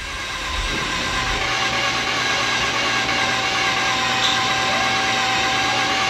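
Starter cranking a Mazda RX-8's 1.3-litre rotary engine steadily, with the throttle held to the floor in clear-flood mode, and the engine not catching. It is flooded and low on compression.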